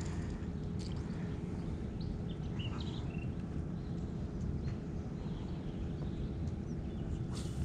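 Outdoor ambience: a steady low rumble with a few short bird chirps, around a second in and again about three seconds in.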